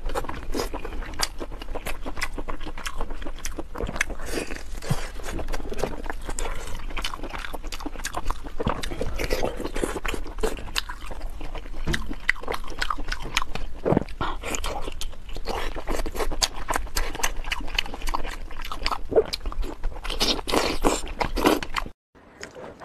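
Close-miked wet chewing and biting, full of sticky mouth clicks and smacks, as a person eats ring-shaped braised pork intestine (one intestine stuffed inside another). The sound cuts off abruptly about a second before the end.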